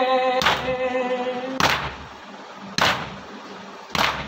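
Mourners doing matam, striking their chests with their hands in unison: four heavy thumps about one every 1.2 seconds. The group's sung noha line is held over the first thump and fades out after about a second and a half.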